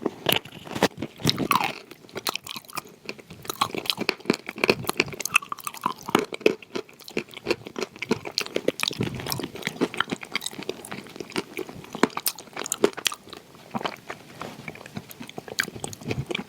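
Close-up chewing and crunching of soaked blue Uzbek edible clay mixed with buttercream: a dense, irregular run of crackly bites and mouth sounds.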